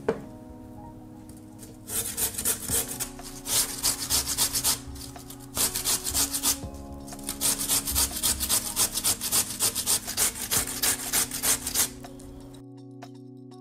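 Raw peeled potato grated on a metal box grater: rhythmic rasping strokes, about three or four a second, in two runs with a short pause between them. A single sharp knock comes right at the start.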